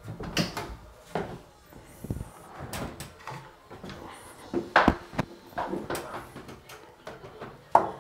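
Irregular wooden knocks and bumps as a wooden window-casing unit is carried up a stairwell past an aluminium stepladder, along with footsteps on the stairs. The loudest knocks come about five seconds in and just before the end.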